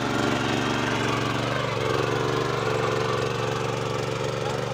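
Walsan power weeder's engine running steadily under load as its rotary tines till grassy soil.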